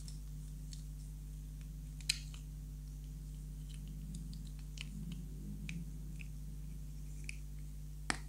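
Small hard-plastic toy pieces clicking and tapping as they are handled and pushed together. Two sharper snaps, about two seconds in and near the end, as parts click into place.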